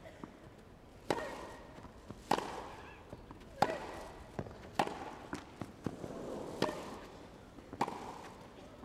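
Tennis rally on a grass court: a tennis ball struck back and forth with racket strikes about every second and a quarter, with softer ball bounces between the hits.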